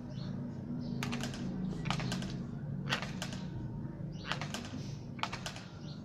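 Rose-ringed parakeet biting at its wire cage with its beak: five short clusters of quick, sharp clicks, about a second apart.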